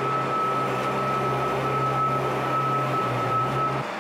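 Scissor lift's motor running steadily with a low hum and a thin high whine, then cutting off abruptly near the end.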